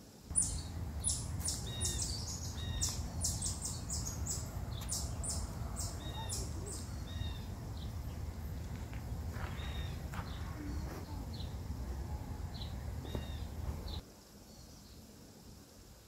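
Small birds chirping in quick runs of short, high calls over a steady low rumble. Both begin and end abruptly, and the chirping is busiest in the first half.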